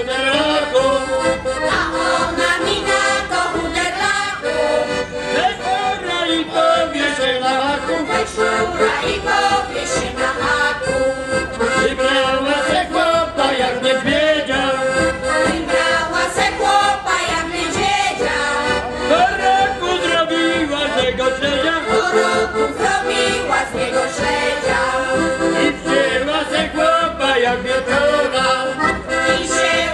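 Accordion-led folk band playing a traditional tune, with a held note sounding steadily under the moving melody.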